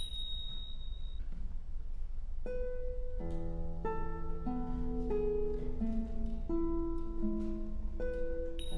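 A pair of small hand cymbals rings out at the start, fading over about a second, and is struck again near the end. From about two and a half seconds in, a gentle plucked guitar melody plays.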